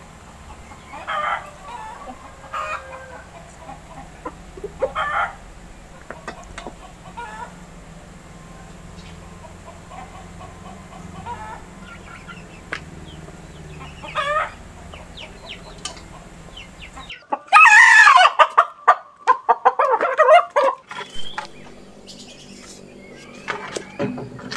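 Free-range village chickens clucking with short scattered calls while they feed. About two-thirds of the way through, a much louder stretch of about four seconds of rooster crowing.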